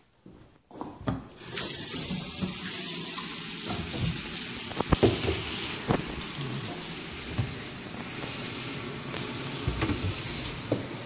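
Bathroom tap turned on about a second and a half in and left running, water pouring into the sink with a steady hiss. A couple of short knocks sound over it around the middle.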